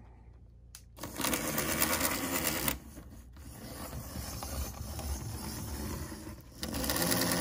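Model locomotive chassis, a Bachmann Gen 1 Norfolk & Western J class 4-8-4 with its shell off, running along the track: its small electric motor and gear train make a steady mechanical whirr. The whirr starts about a second in, drops softer near the 3-second mark and grows loud again near the end. It runs with the motor brushes sparking from poor contact.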